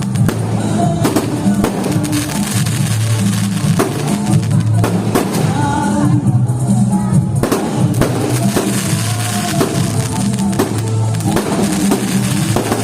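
Music with a heavy drum beat and a repeating bass line.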